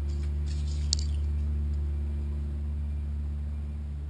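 A steady low hum, with one short sharp click about a second in.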